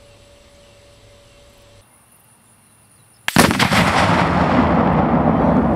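A 4 lb charge of Tannerite exploding when hit by a 25-06 rifle bullet from 125 yards: a sudden loud blast about three seconds in, with a few sharp cracks close together, then a long rolling rumble that slowly dies away.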